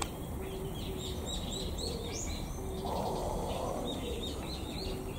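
Wild birds calling in woodland: a run of quick, repeated high chirps, over a low note repeated in short bursts.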